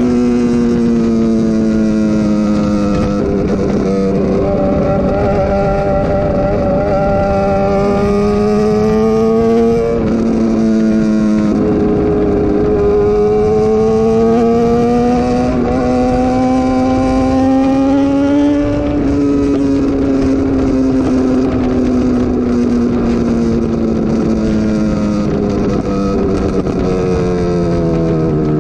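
BMW S1000R inline-four motorcycle engine running at steady cruising revs over a constant rush of wind and road noise, its pitch slowly rising and falling with the throttle. About ten seconds in, an upshift drops the pitch suddenly, and near the end the revs fall steadily away as the bike slows.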